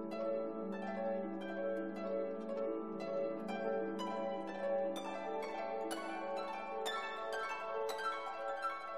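Background music: a quick, continuous run of plucked string notes, each fading away, over a held low note.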